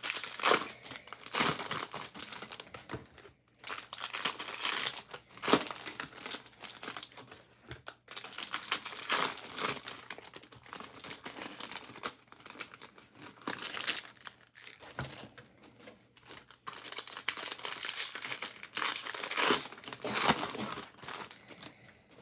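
Wrappers of Bowman Draft baseball card packs crinkling and tearing as the packs are ripped open and handled, in irregular rustling bursts.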